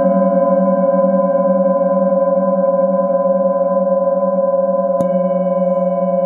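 Hand-held singing bowl struck with a mallet at the start and again about five seconds in. Between strikes it rings on as a steady, layered hum, its low tone pulsing gently.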